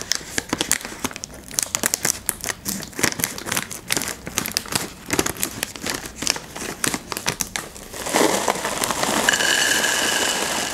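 Plastic cereal bag crinkling and crackling as it is handled and cut open with scissors, with many sharp clicks. About eight seconds in this gives way to a louder, steady rush of Nesquik Duo chocolate cereal balls pouring out of the bag into a glass dish of milk.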